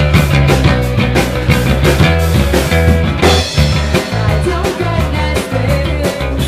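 Live rock band playing loudly: an amplified electric guitar over a heavy, moving bass line, with steady drum hits.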